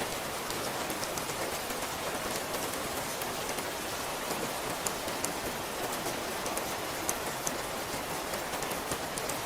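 Steady rain falling, an even hiss with many scattered sharp ticks of individual drops striking a surface.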